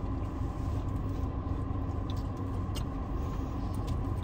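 Steady low hum of a car idling, heard from inside the cabin, with a few faint clicks from chewing a crunchy cookie.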